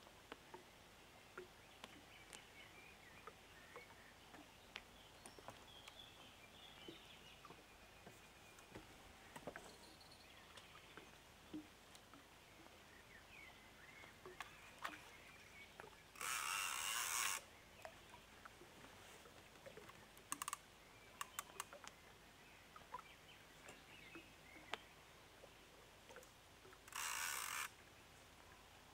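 Near silence broken by scattered faint clicks and small knocks, with two hisses about a second long, one a little past halfway and one near the end.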